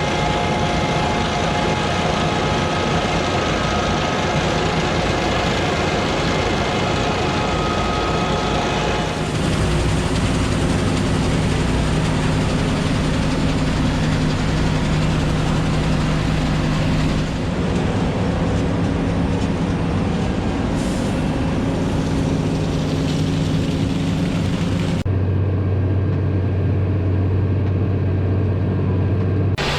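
John Deere combine harvester running steadily under load, a continuous engine drone and machinery hum. The sound shifts abruptly several times as one shot cuts to the next.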